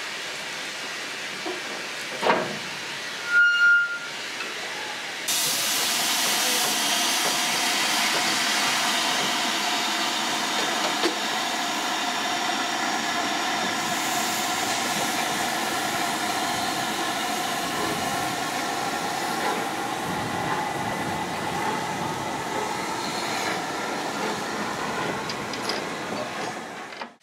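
LMS Jubilee class 4-6-0 steam locomotive hissing steam steadily, louder from about five seconds in. Two loud knocks come in the first four seconds.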